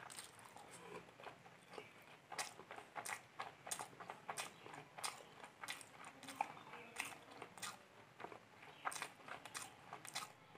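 Close-miked chewing of egg and rice: soft, irregular wet mouth clicks and smacks, a few each second.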